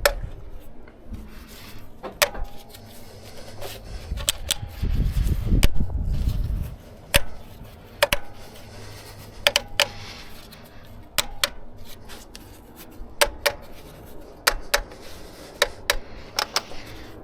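Irregular sharp metallic clinks and taps with a brief ring, as of metal tools being handled and knocked against the car during an oil change, about a dozen in all. A low rumble swells for a couple of seconds about five seconds in.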